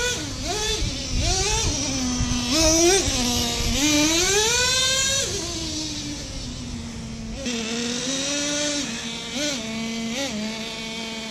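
Traxxas T-Maxx 3.3's two-stroke nitro engine revving in a series of short throttle blips, then a long rising rev about four seconds in. It drops back to a steady idle, with two quick blips near the end.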